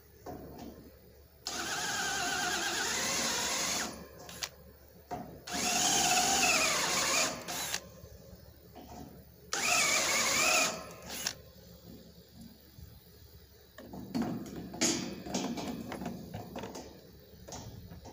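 Cordless drill run in three bursts of one to two seconds each, its motor whine rising and falling in pitch as the trigger is worked. Quieter knocks and handling noises follow near the end.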